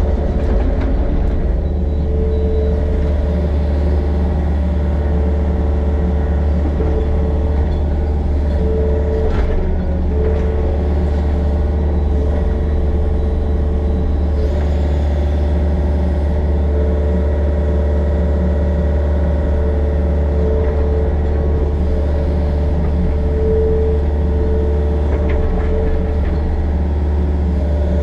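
Excavator's diesel engine running steadily while it works, a constant low hum with a steady higher drone over it.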